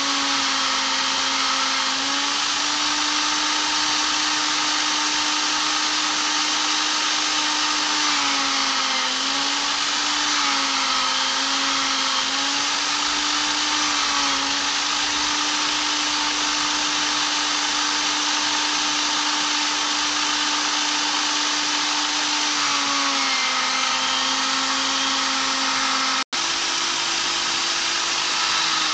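Black & Decker corded drill running steadily with a foam polishing pad, polishing an epoxy resin piece with abrasive paste. The motor's pitch sags several times and recovers as the piece is pressed against the pad. Near the end the sound cuts out for an instant, then the drill runs on at a slightly higher pitch.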